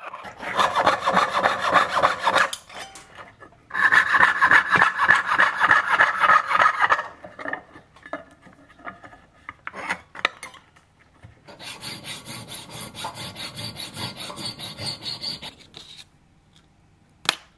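A piercing saw and a file working a small piece of thin brass sheet against a wooden bench peg, in quick rhythmic strokes. The strokes come in three bouts with short pauses between them, cutting out and shaping a home-made mainspring clamp.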